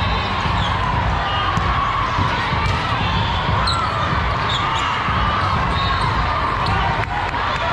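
Echoing din of a large hall full of volleyball courts: ball thuds, background chatter and calls from players and spectators, and scattered short high squeaks.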